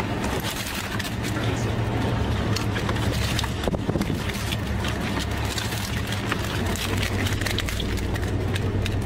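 Boat engine idling as a steady low hum, overlaid with frequent small clicks and scratches from live southern rock lobsters shifting in a full craypot while a gloved hand works among them.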